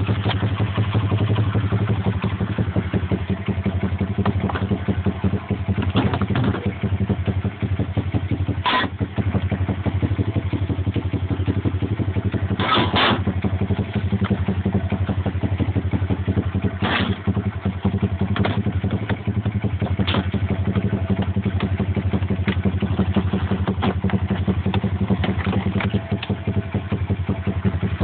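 A pit bike's small single-cylinder four-stroke engine idling steadily, with a few sharp clicks along the way.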